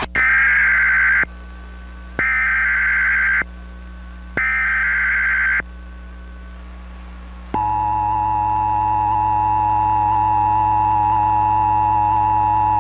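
Emergency Alert System header: three bursts of data tones (SAME code), about a second each with a pause between, then about seven and a half seconds in the steady two-tone attention signal starts and holds. These are the alert tones of a monthly EAS test broadcast.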